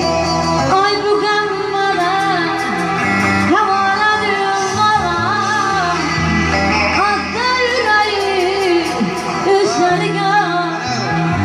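A woman singing into a microphone over an instrumental backing. Her voice comes in under a second in, with sliding, wavering pitch on long held notes.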